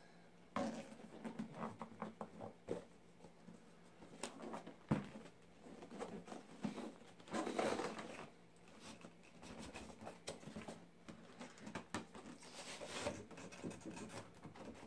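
Faint, irregular scratching, tapping and rustling of hands handling a cardboard product box, with a couple of longer rustles along the way.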